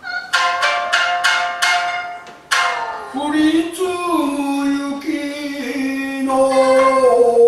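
Shamisen plucked in a quick phrase of about six sharp notes, then a male rōkyoku singer's held, wavering sung line over it, climbing higher near the end.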